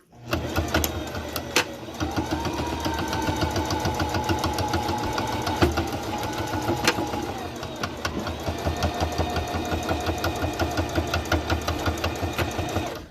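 Domestic single-needle sewing machine stitching a seam in a fast, even run of stitches; the motor's hum rises in pitch about two seconds in as it speeds up, and eases back down about eight seconds in. A few sharp clicks sound over the stitching.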